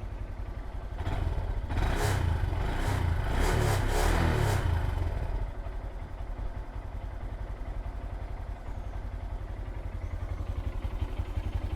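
Honda Grom's small single-cylinder engine idling steadily on fresh oil, run to check for leaks after the oil change. Between about one and five seconds in, a louder stretch of clatter sounds over the idle.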